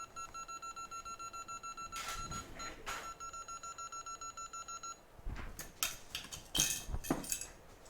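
Hot air rework station beeping rapidly, about eight short high beeps a second, stopping about five seconds in. A few sharp clicks and knocks follow near the end.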